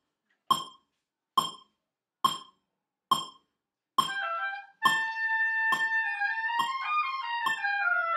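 Metronome clicking a slow, even beat of about seventy clicks a minute; about four seconds in, oboes come in together, playing held notes that change slowly in time with the clicks during slow practice of a passage.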